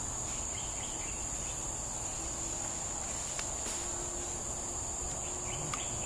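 Insect chorus making a steady, high-pitched drone.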